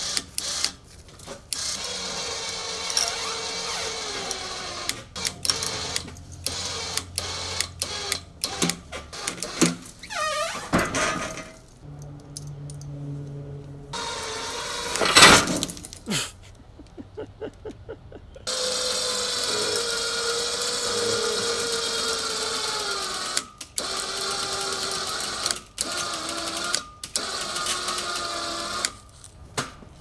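A motor whining in stretches, probably a cable winch pulling heavy log halves over through a snatch block, with clanks and knocks of chain and steel. The sound stops and starts abruptly in short pieces. The loudest event is a single sharp bang about halfway through.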